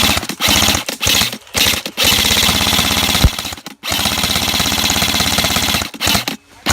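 Airsoft gun firing on full auto in rapid, evenly spaced bursts: several short bursts, then two long strings of about two seconds each.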